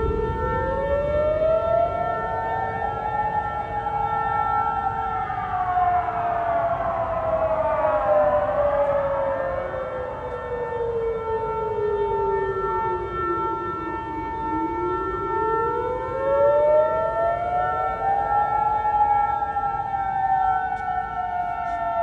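Air raid sirens wailing: the loudest climbs for a few seconds, sinks slowly for about ten, then climbs again near the end. Other sirens sound at the same time, some gliding across it and some holding steady tones.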